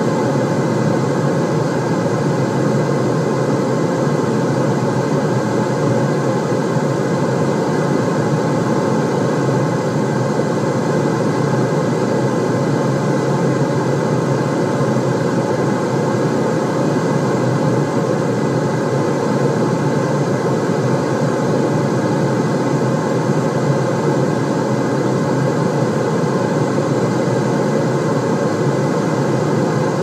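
White-noise track: a loud, even, unchanging rush with most of its weight low in pitch.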